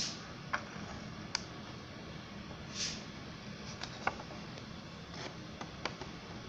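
Light handling noise: a few scattered short clicks and one brief rustle over steady background hiss, as a sheet of paper is held and shifted in front of the beam.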